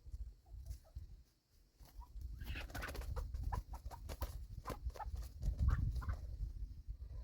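Chickens clucking in a run of short calls, over a low rumble.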